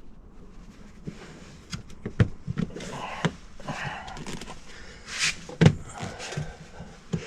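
Plastic interior trim being handled and pressed into place: a run of irregular clicks and knocks with rustling between them, a short scrape about five seconds in followed by the loudest knock.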